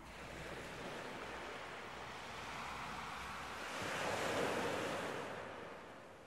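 Ocean surf on a shore: a steady wash of water noise, with one wave swelling up about four seconds in, then fading away.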